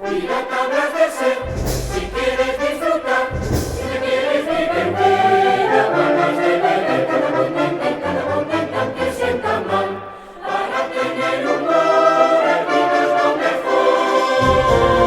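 Choral music: a choir singing with instrumental accompaniment and deep low notes, briefly dropping in level about ten seconds in.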